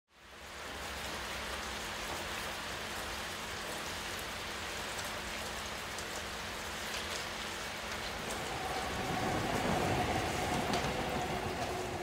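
Steady rain falling on wet pavement, fading in at the start. About two-thirds of the way through, a passing vehicle's low rumble and steady hum join in and grow louder.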